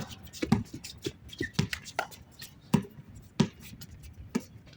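A basketball bouncing on the court: a string of sharp, irregularly spaced thuds, about eight in all, with a short high squeak about one and a half seconds in.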